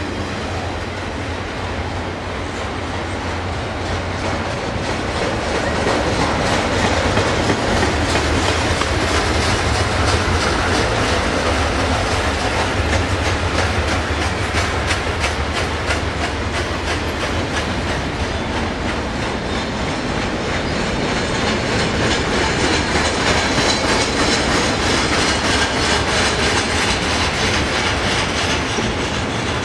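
Union Pacific double-stack container train's cars rolling steadily past, the wheels clicking rapidly over the rail joints.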